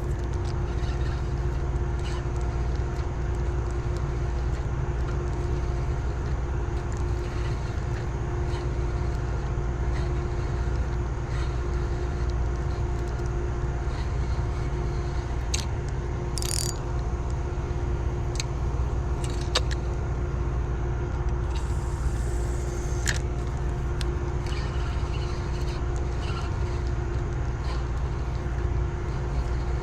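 Steady low rumble with a constant droning hum, like distant engine machinery, with a few scattered light clicks.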